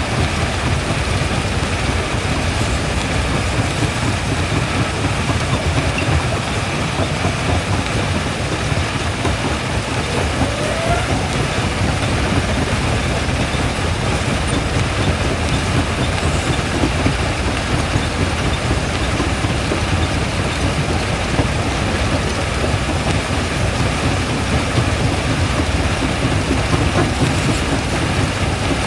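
Quarry primary jaw crusher running, a steady, dense rumble and grind of heavy machinery with no clear single impacts standing out.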